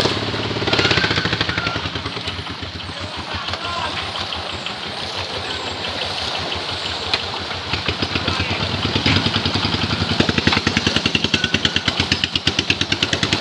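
Many fish thrashing and leaping in a tightly drawn seine net, loud continuous splashing and slapping on the water, turning into a rapid pulsing churn in the last few seconds.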